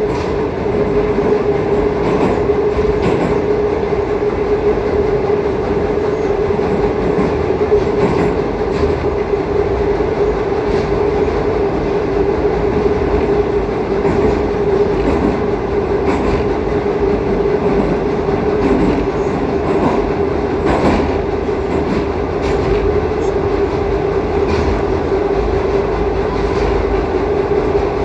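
Metro train running at steady speed through a tunnel, heard from inside the carriage: a loud, continuous rumble of wheels on rail with a steady whine held at one pitch, and now and then a faint click from the track.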